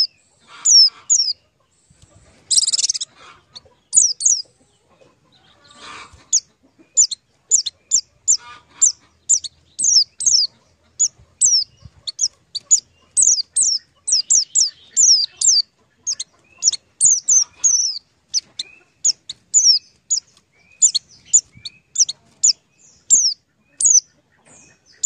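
Small birds chirping: many short, high chirps that fall in pitch, often in quick pairs, about two or three a second, with a brief noisy burst about three seconds in.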